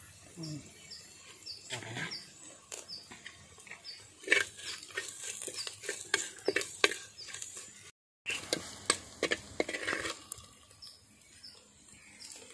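Metal spoon scraping and clinking against a clay cooking pot as fried snails are stirred and scooped out, in many short, uneven clicks. A bird chirps repeatedly in the background, about twice a second.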